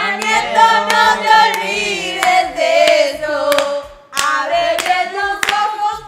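A group of young people singing a song together, with hand claps breaking in again and again.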